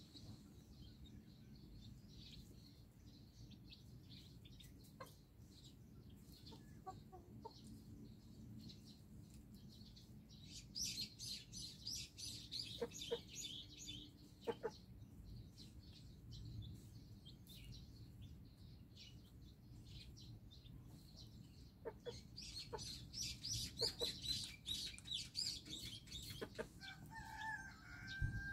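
Chicks peeping in two stretches of rapid, high chirps, the first about ten seconds in and the second from about twenty-two seconds, with a Silkie hen's short, low clucks in between and a longer hen call near the end.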